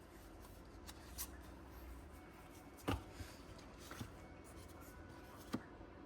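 Faint handling of Pokémon trading cards being flipped through, with a few soft clicks and taps, the most distinct about halfway through and another near the end.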